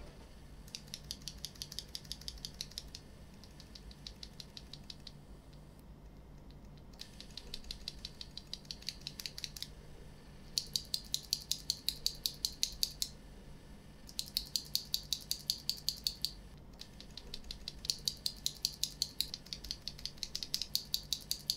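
Gateron Brown tactile mechanical keyboard switches pressed repeatedly in six runs of rapid clicks, some runs louder than others. This is a lubed-versus-unlubed comparison: the switches lubed with Krytox 205G0 sound smoother and quieter, and the unlubed ones noisier and scratchy.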